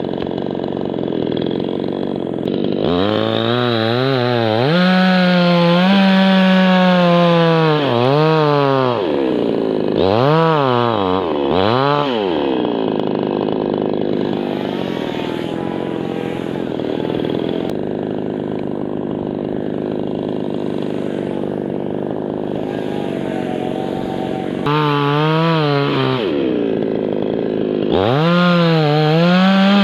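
Chainsaw bucking a birch trunk into firewood: it idles, then runs at full throttle for about six seconds with the pitch sagging and recovering under load, then gives a shorter burst. It idles for about twelve seconds before two more full-throttle bursts near the end.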